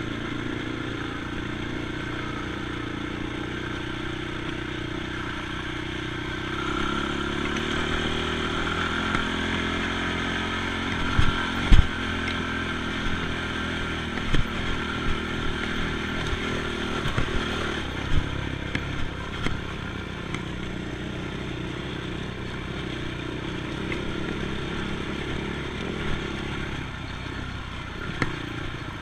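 ATV engine running under way, its pitch rising and falling with the throttle, with scattered knocks and clatter, the sharpest about twelve seconds in.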